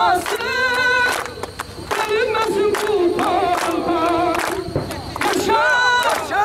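A crowd of men singing together, with steady rhythmic hand-clapping about three times a second; near the end the voices break into shouts.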